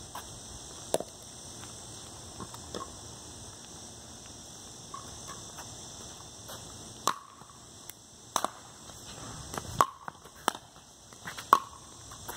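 Pickleball rally: sharp pocks of paddles striking a hard plastic pickleball and the ball bouncing on concrete. A few scattered hits come early, then roughly one a second in the second half. Under them is a steady high drone of insects.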